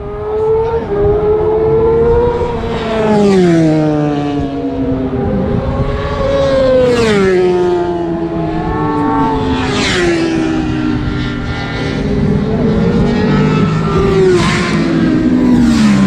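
Engines of vehicles lapping a race circuit, more than one heard at once, revving up and falling in pitch as they shift and pass. A motorcycle passes close near the end, its engine note dropping as it goes by.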